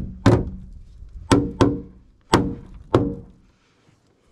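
A hammer striking a thin metal boat hull, five blows at an uneven pace, each leaving a short metallic ring. The blows stop about three and a half seconds in.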